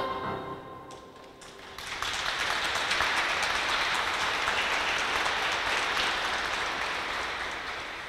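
The last notes of a choir-and-piano song die away, then an audience applauds from about two seconds in, fading near the end.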